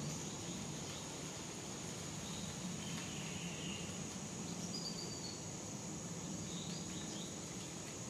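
Summer woodland ambience: a steady high-pitched insect drone with a few short bird chirps scattered through, over a low steady hum.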